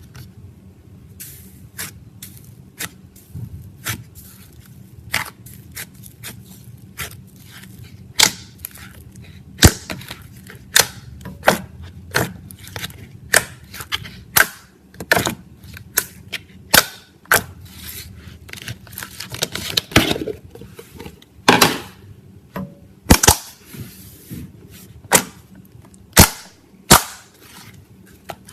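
Air bubbles in slime popping with sharp, irregular clicks and pops, one or two a second.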